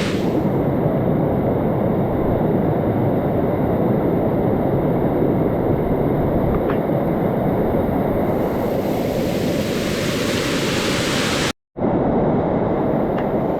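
Monsoon rainwater rushing down a flight of fort steps in a waterfall: a steady, loud roar of water. It cuts out for a split second about eleven and a half seconds in.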